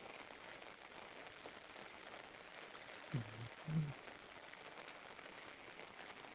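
Rain falling steadily: a faint, even hiss with fine drop ticks. Two short low sounds come a little after three seconds and about four seconds in.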